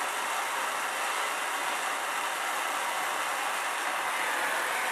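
Plumber's gas torch flame hissing steadily as it heats a sweated copper pipe joint at a brass valve, bringing it up to soldering temperature.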